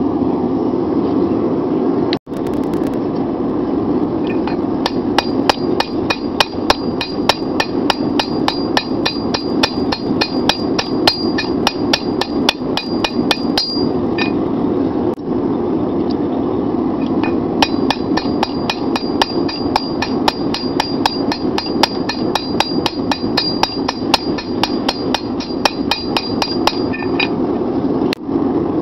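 Hand hammer forging a red-hot 5160 steel bar on an anvil: two runs of quick blows, about three a second, with a pause of a few seconds between them. Each blow leaves a high ring from the anvil. A steady rushing noise sits underneath.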